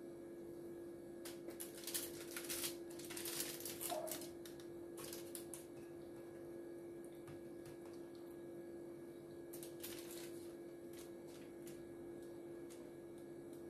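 Aluminium foil lining a baking tray crinkling and crackling as raw marinated chicken pieces are laid onto it by hand: a busy cluster of crisp crackles in the first few seconds and a shorter one past the middle, over a steady low hum.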